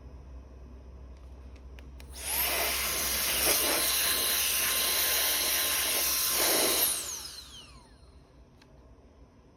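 High-speed turbo fan switched on: it whines up quickly about two seconds in, blows steadily with a high whine for about four and a half seconds, then spins down with a falling whine.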